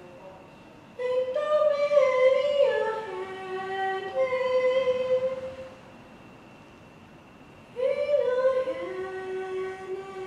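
A woman singing solo, with no accompaniment: a phrase of held notes stepping down in pitch from about a second in, then a second phrase starting near the end.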